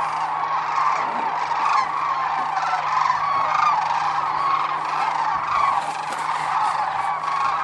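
A large flock of sandhill cranes calling all at once: a dense, unbroken chorus of many overlapping calls.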